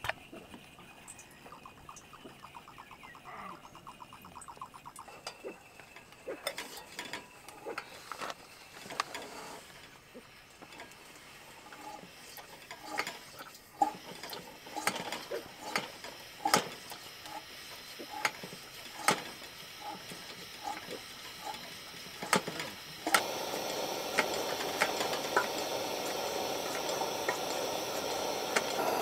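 Scattered light clicks and knocks of objects being handled, growing busier midway. About 23 seconds in, a steady rushing noise starts suddenly and carries on under the clicks.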